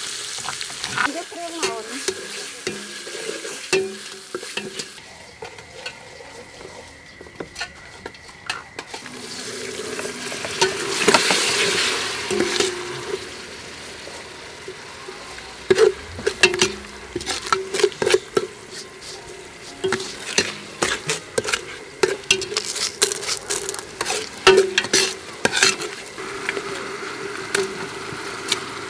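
Pounded yellow spice paste frying in oil in a steel pot, with a steady sizzle that surges loudly a little over ten seconds in. A metal spoon scrapes and clinks against the ringing pot as the paste is stirred, most often in the second half.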